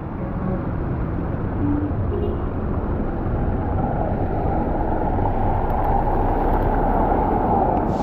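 Steady rushing wind and rain noise on a bicycle-mounted action camera's microphone, riding at speed through typhoon rain over a wet, partly flooded road. It grows a little louder about halfway through.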